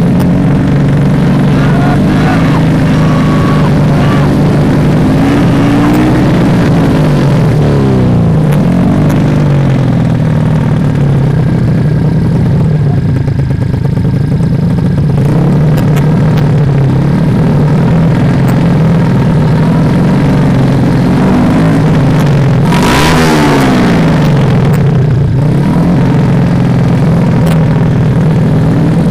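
125cc underbone racing motorcycle engines running fast at the start line and being blipped, the revs rising and falling around a quarter of the way in and again near the end, with a brief harsh rasp at the second rev.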